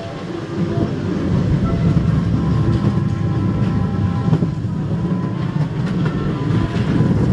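Dark-ride car rolling along its narrow rail track: a steady low rumble of wheels on the rails.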